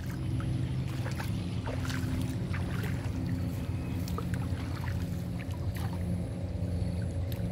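Water sloshing and lightly splashing around a person wading chest-deep, with small scattered splashes, over a steady low motor hum.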